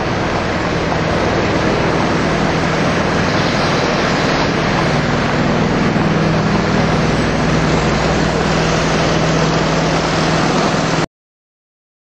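Loud, steady mechanical din of the steam-powered sawmill at work, with a low steady hum that comes in about a second in. It cuts off suddenly near the end.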